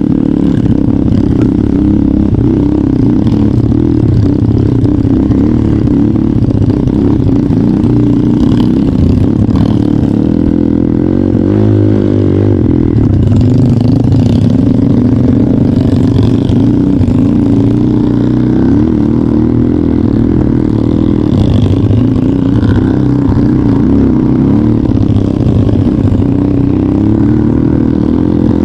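Trail motorcycle engine running steadily while riding, with some clatter; the engine note dips and rises briefly about twelve seconds in.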